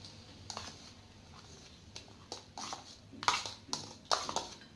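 A spoon scraping and tapping against a plastic bowl as soaked moong dal is spooned out into a steel bowl: a string of light clicks and scrapes, sparse at first and busier after about two seconds.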